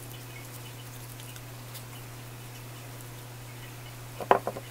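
Quiet handling of a flour-coated meat patty being rolled and shaped between the hands, over a steady low hum. A few short, soft knocks about four seconds in, as the patty is patted.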